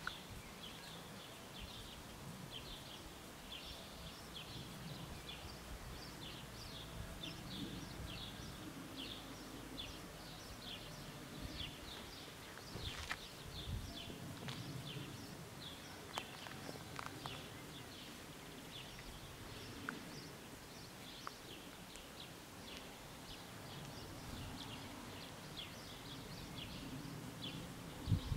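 Small birds chirping over and over in short, high chirps, over a faint low rumble of outdoor background noise.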